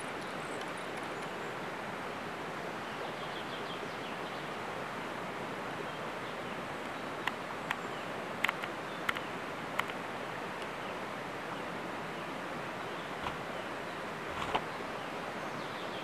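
Forest ambience: a steady even hiss with a few faint, high bird chirps, and a run of sharp clicks or snaps about halfway through, with two more near the end.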